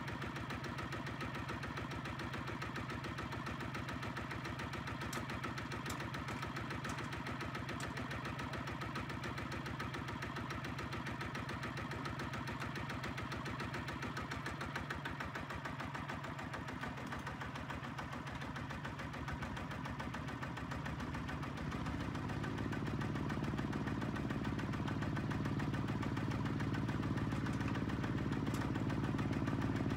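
HINOTA walking tractor's single-cylinder diesel engine running steadily with an even chugging beat, then revving up about two-thirds of the way through and running louder under load as it pulls its sand trailer off the dirt crossing.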